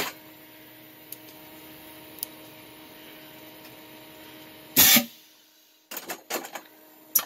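Pneumatic Halloween pop-up prop firing once, about five seconds in: a short, very loud blast of air out of its valve muffler, which is louder with the sock removed from the muffler. A few sharp clacks follow.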